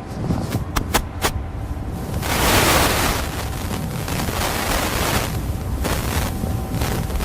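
Wind buffeting an outdoor microphone as a constant low rumble. It is broken by a few sharp clicks in the first second or so and by loud rushes of hiss, the longest starting about two seconds in and lasting about a second.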